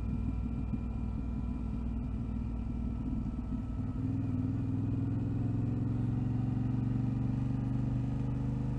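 Vehicle engine running while driving along a rough off-road track. About four seconds in, the engine note becomes steadier and a little louder, rising slightly in pitch.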